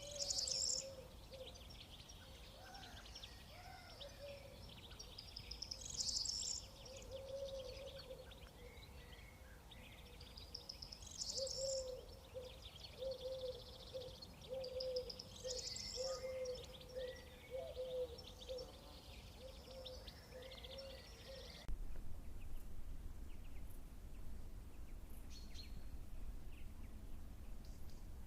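Songbirds singing: a bright trilling phrase comes about every five seconds over a run of short, lower warbled notes, with a steady low rumble underneath. The birdsong cuts off suddenly about 22 seconds in, leaving the rumble.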